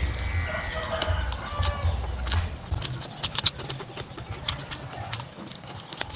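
Close-up crunching and chewing of a crumb-coated fried risol, a run of crisp crackles and clicks as it is bitten and chewed. A chicken calls in the background in the first second or two.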